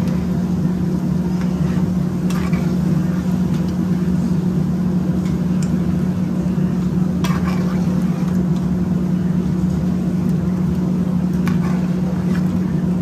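A metal ladle stirring a thick meat curry in a wide pan, with a few short scrapes against the metal, over a loud steady low mechanical hum.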